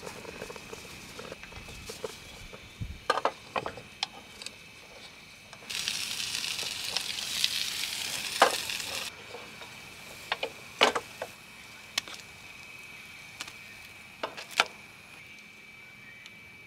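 Cooking in a pan: scattered clicks and taps of a utensil against the pan, with a loud burst of sizzling in the middle that lasts about three seconds and stops abruptly.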